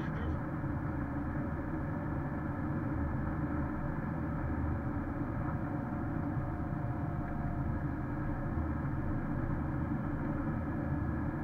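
Steady in-cabin road noise of a Porsche Cayenne S cruising on a snow-covered highway: a low, even rumble of tyres and engine.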